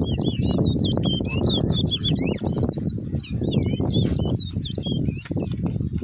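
Caged towa-towa seed finches singing a quick run of whistled and warbled song phrases, one after another with hardly a break. A steady low rumbling noise lies underneath.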